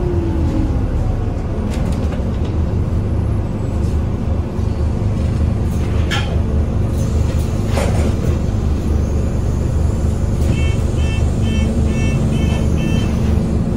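Scania OmniCity bus engine running, heard from inside the passenger cabin, with its revs falling at the start. Two brief knocks come about six and eight seconds in, and a run of short high beeps sounds about two-thirds of the way through.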